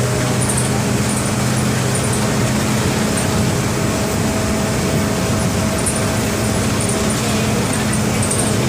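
MWM 4.12 TCE four-cylinder inline turbodiesel of a Volksbus 15-190 EOD bus running at a steady, unchanging pitch.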